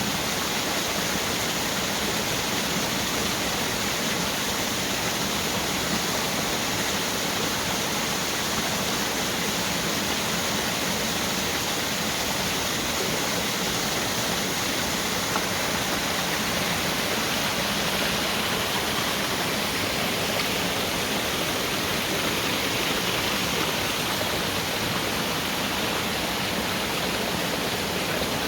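A waterfall's water falling and splashing, a steady rushing noise.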